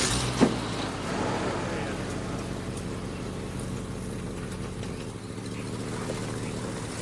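A car engine running steadily at idle, with a sharp knock about half a second in, such as a car door shutting.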